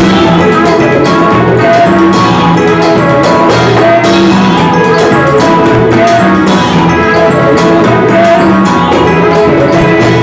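Live church worship music, loud and close: a band with bass guitar and drums playing a steady beat, with women singing into microphones.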